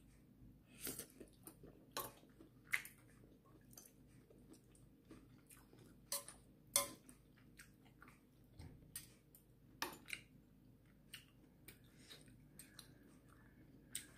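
Quiet eating sounds of someone eating seaweed ramyeon: soft chewing with scattered sharp clicks and clinks, a few louder ones, from a metal spoon and chopsticks against a stainless steel pot.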